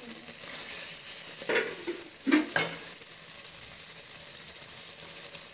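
Chicken masala sizzling steadily as it fries in a pan while being stirred, with three louder stirring strokes in the middle.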